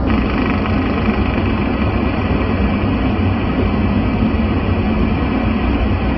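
Steady hiss from a CB radio receiving on upper sideband with no station coming through, over the low rumble of the vehicle driving on the road.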